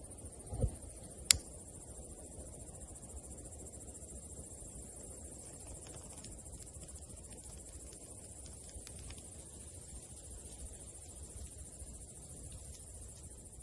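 Kindling of a nodya log fire just being lit: a sharp click about a second in, then faint, scattered crackles as it catches, over a steady faint high hiss.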